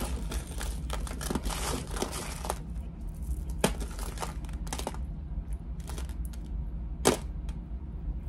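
Small metal jewelry pieces clinking and rattling as they are handled and sorted: a busy run of clatter for the first couple of seconds, then separate sharp clicks, the loudest about seven seconds in.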